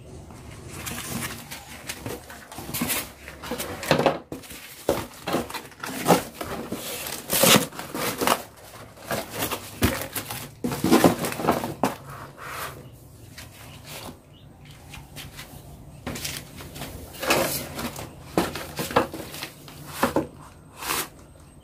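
Irregular knocks and clatter with some rustling: kitchen utensils and fresh produce being handled, as fruit is got ready for peeling.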